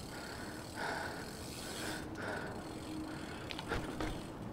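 BMX bicycle being ridden on pavement: steady tyre and road noise with the drivetrain rattling, and a few sharp clicks near the end.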